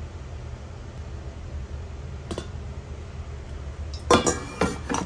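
Coffee poured from a stainless steel kettle into a glass mug over a low steady hum, then about four seconds in a quick run of loud glass-and-metal clinks that ring briefly.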